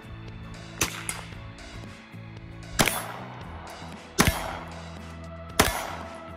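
Four single shots from a 9mm AR-style pistol, fired at a steady pace about one and a half to two seconds apart, each a sharp crack with a short tail.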